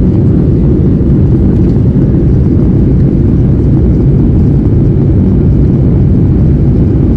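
Steady low roar of an airliner's cabin noise, engines and airflow heard from a window seat as the plane climbs shortly after takeoff.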